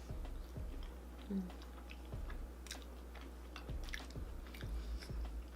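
Close-miked chewing of pizza: irregular mouth clicks and smacks as a bite is chewed.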